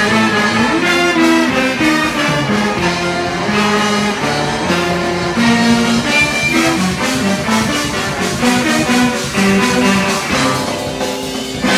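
A large ensemble playing live: a horn section of clarinet, saxophones, trumpet and trombone over a rhythm section with drums, with many notes sounding together.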